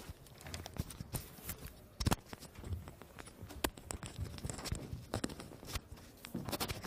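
Microphone handling noise: irregular knocks, clicks and rustles as the microphone is moved and fitted.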